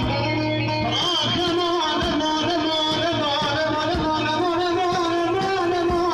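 Male singer singing a Turkish uzun hava into an amplified microphone, in long wavering, ornamented phrases over a held instrumental drone.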